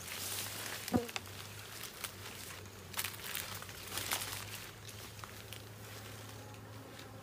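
Honeybees buzzing steadily around an open hive, with crackling and rustling from the comb and surroundings being handled. A brief falling whine about a second in.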